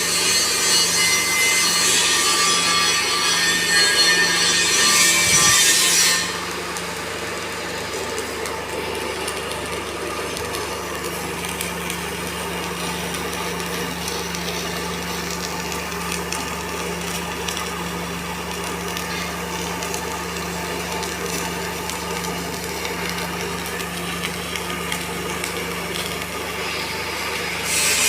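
Electric welding arc crackling and hissing for about six seconds, then stopping, leaving a quieter steady hum. The crackle starts again near the end.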